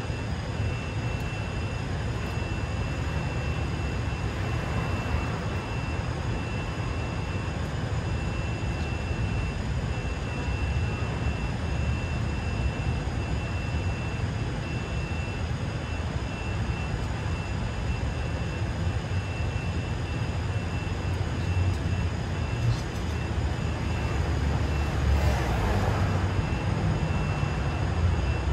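City street ambience: a steady low rumble of traffic with a faint, steady high-pitched tone over it, growing louder as a vehicle goes by near the end.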